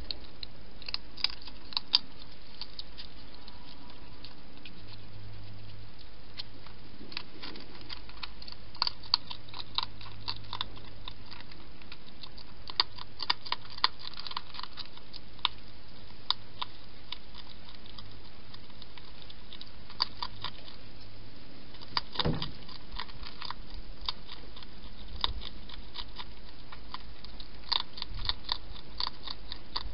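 A wild hedgehog eating from a dish: irregular runs of sharp crunching clicks as it chews, with a single dull knock about two-thirds of the way through.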